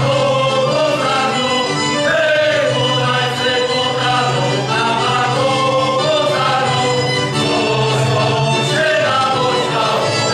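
Men's folk choir singing a song together in several voices, over a steady low held note.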